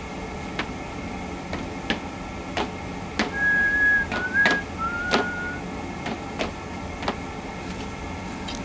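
A regular run of sharp clicks, about three every two seconds, over a steady low hum. Near the middle come two short, level whistled notes, the second a little lower than the first.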